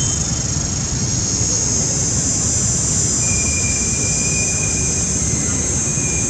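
Steady high-pitched drone of cicadas over a low rumbling noise, with a faint thin whistle about three seconds in.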